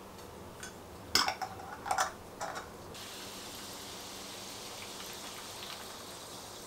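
Perrier sparkling water poured over ice onto cherry juice in a tall glass, fizzing with a steady hiss that starts about three seconds in. Before the pour, a few sharp knocks and clinks of glass on the counter.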